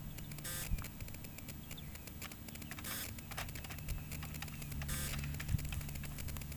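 Keys of a computer keyboard being pressed in irregular clicks, over a steady low hum.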